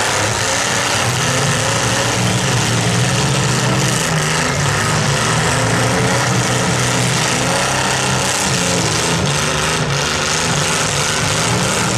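Several compact-car engines running and revving together in a demolition derby, a loud, steady din.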